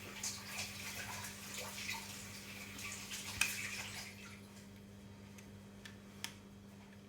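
Small plastic bottle-lid parts being handled: scattered light clicks and rubbing for about four seconds, then only a couple of isolated clicks over a faint steady hum.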